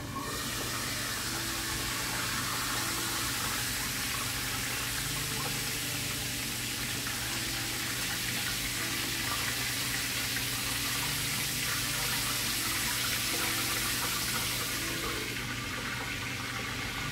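Flour-coated turkey wings frying in hot oil in a skillet, a loud steady sizzle that starts suddenly as the glass lid comes off. Near the end it turns duller as the lid goes back on.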